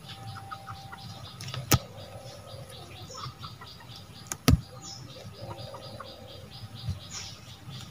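Hand-picking from a leafy shrub: sharp snaps of stems breaking off, one about two seconds in and a double snap about four and a half seconds in, over a steady, rapid background chirping with a few short high chirps.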